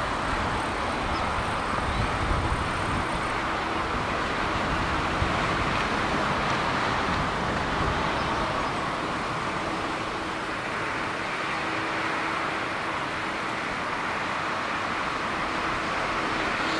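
Boeing 787 Dreamliner's twin turbofan engines at takeoff thrust: steady jet noise as the airliner rolls, lifts off and climbs away. The deep low rumble is heaviest in the first few seconds and then thins out.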